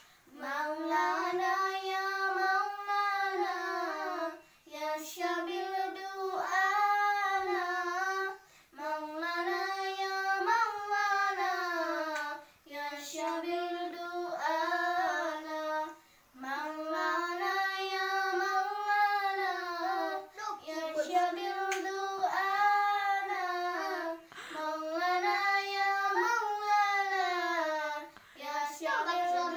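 Children singing a song unaccompanied, in phrases of about four seconds with short breaths between them.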